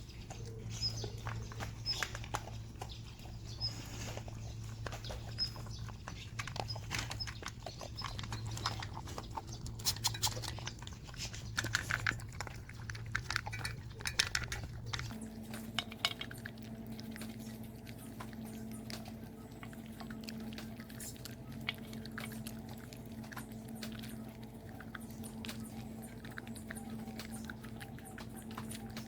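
Dog eating its food: chewing and crunching, with many short irregular clicks that are busier in the first half and thin out after about fifteen seconds.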